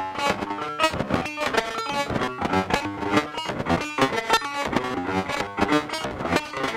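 Eurorack modular synthesizer patch playing a rapid sequence of short, plucked-sounding notes with shifting pitches. The notes are gated on and off as the Animodule M1xxor mixer steps through its channels, driven by an LFO into its CV input.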